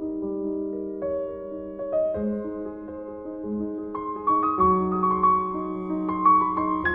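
Grand piano played slowly, held chords with a melody moving over them; from about four seconds in more notes are struck and the playing grows louder.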